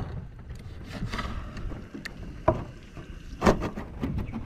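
Knife work on raw sea cucumbers: scattered short knocks and scrapes, the sharpest about two and a half and three and a half seconds in, over a low steady rumble.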